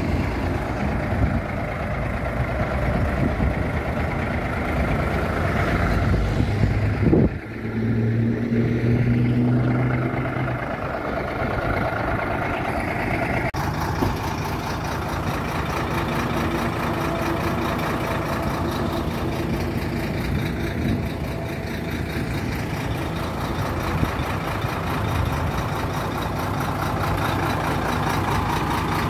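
Diesel semi-truck engine idling steadily. The sound changes abruptly about 14 seconds in.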